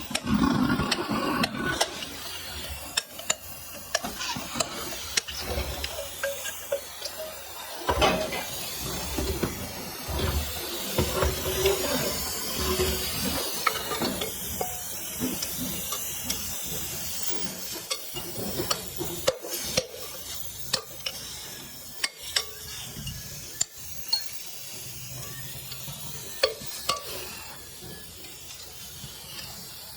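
Clinks, knocks and scrapes of metal pieces being handled, over a steady hiss.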